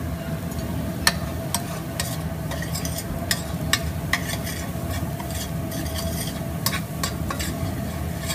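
Chopped garlic and hot pepper flakes sizzling in olive oil in a stainless steel skillet. A metal spoon stirs them, scraping and clicking against the pan again and again. The garlic is frying to golden brown.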